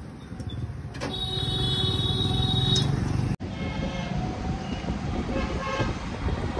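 City street traffic heard from an open-sided carriage: a steady rumble of motor vehicles, with a held, horn-like tone lasting about two seconds starting about a second in. The sound breaks off for an instant midway at an edit.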